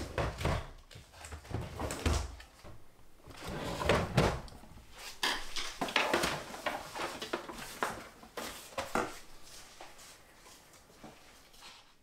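Household handling noise at a chest of drawers: irregular knocks, clicks and paper rustles as objects are picked up and set down on its top. The sounds thin out after about nine seconds.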